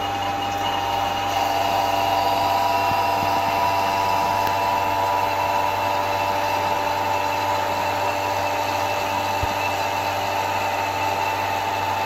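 Electric vacuum pump running steadily, a constant motor hum with a whine on top, as it pulls a vacuum on a refrigerator's sealed system through the manifold gauge's low-side hose.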